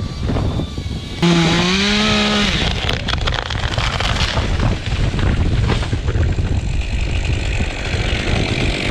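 An engine revs up suddenly about a second in, its pitch rising for about a second, then runs loud and rough with a rattling, ticking noise.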